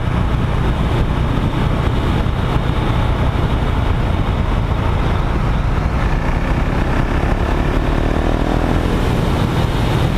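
Husqvarna motorcycle under way at road speed: its engine running steadily beneath heavy wind noise on the bike-mounted microphone, with the engine note climbing slightly near the end.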